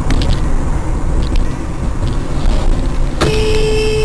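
Low rumble of a car driving, picked up by a dashcam, then about three seconds in a car horn starts sounding one steady note.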